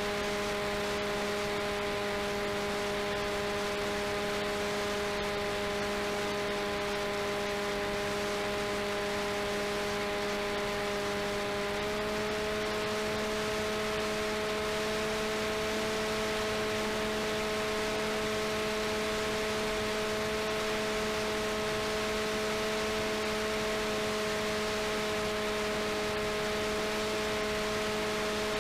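RCTimer 5010 630KV brushless motor and propeller of a delta-wing RC plane in flight, a steady whine under a constant hiss. The whine steps up slightly in pitch about twelve seconds in.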